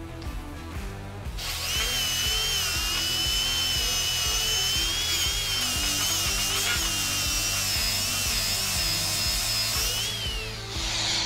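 Cordless DeWalt 20V angle grinder grinding a steel bar under load: a high motor whine over dense grinding noise, its pitch wavering as the disc is pressed in. It starts about a second and a half in and winds down near the end. Background music plays throughout.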